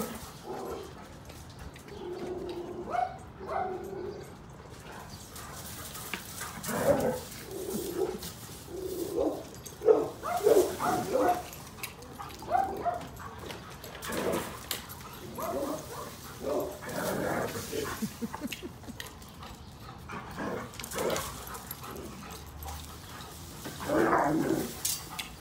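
A dog vocalizing in short, pitched whines and barks, on and off, loudest around ten seconds in and again near the end.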